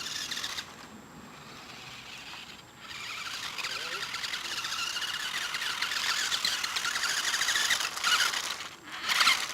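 Electric motor and gears of a vintage Nikko Big Homer 1:18-scale RC buggy whining as it drives. The whine is quieter at first, grows louder about three seconds in with a wavering pitch, and ends in a brief louder burst near the end.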